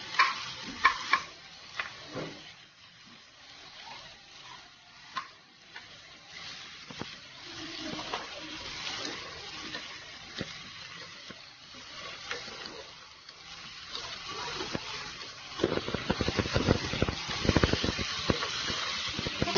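Julienned sweet potato sticks being stir-fried with onion and garlic in a wok: a few clatters as they drop into the pan, then light sizzling of the oil. From about three-quarters of the way through, a wooden spatula scrapes and tosses them, louder and busier.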